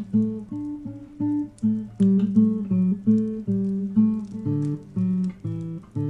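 Solo acoustic guitar playing a picked pattern of single notes, several a second, each note ringing briefly before the next.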